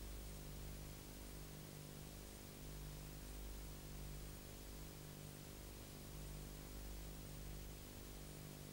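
Faint steady hiss with a low electrical hum, the lowest part of the hum swelling and fading every second or two: an empty soundtrack with no music or effects.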